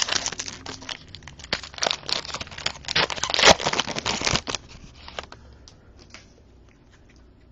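Plastic trading-card packaging crinkling and crackling as it is handled, loudest about three and a half seconds in. It dies down to a few faint ticks after about four and a half seconds.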